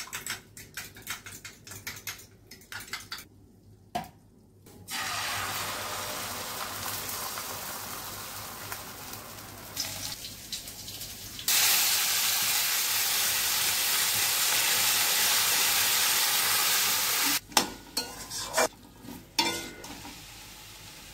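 Peeled whole potatoes frying in hot oil in an iron kadai, a steady sizzle. A few seconds in it is preceded by clinks of kitchenware. Midway the sizzle turns louder, then stops suddenly, and near the end a spatula scrapes and stirs in the pan.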